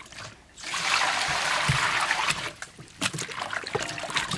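Water sloshing and splashing in a large stainless steel bowl as hands squeeze and rub raw pig intestines clean. It starts about half a second in and dips briefly just past the middle.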